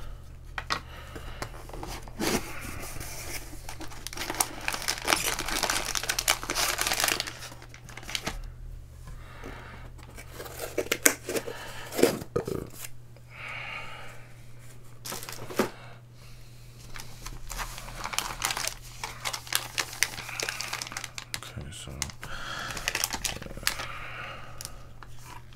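Baseball card pack wrappers being torn open and crinkled, in several spells of rustling, with a few sharp clicks about halfway through.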